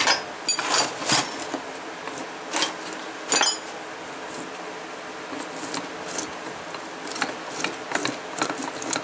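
Metal clinks and knocks from a Suzuki Samurai rear differential third member being handled and its gears worked by hand on a workbench. Several sharp clinks come in the first few seconds, one ringing briefly, then lighter scattered ticks.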